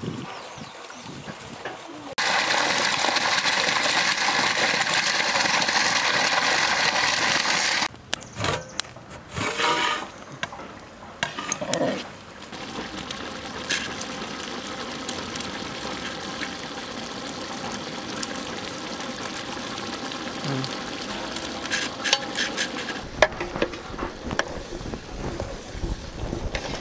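A large pot of tomato masala boiling and sizzling over the fire: a loud steady hiss for several seconds, then a quieter steady bubbling hiss. Scattered clicks of the metal pot lid near the end.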